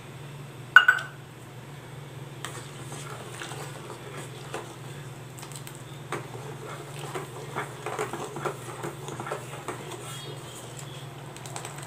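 A metal spoon stirring sago pearls in water in a stainless steel pot, making light irregular scrapes and clinks against the pan. There is one sharper ringing clink about a second in, and a steady low hum underneath.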